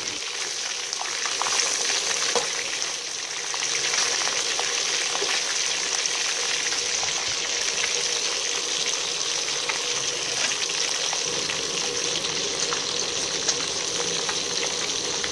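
Pieces of snakehead fish frying in a wok: a steady sizzle dotted with small pops and crackles.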